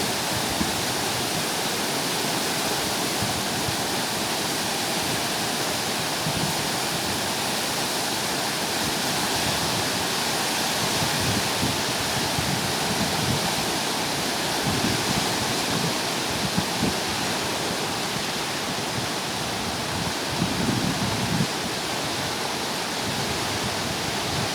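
Godavari river in flood, water rushing steadily in a continuous even wash of noise.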